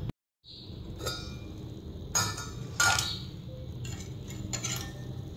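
Metal kitchenware clinking lightly against a steel saucepan several times, over a low steady hum. The sound drops out briefly just after the start.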